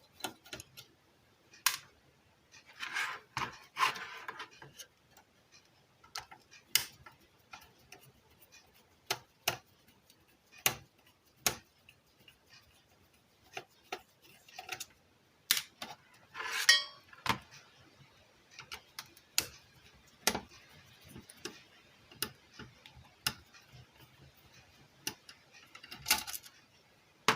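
Small hand tools and parts clicking and tapping irregularly against a circuit board and workbench. There are a couple of short scraping hisses, about three seconds in and again past the middle.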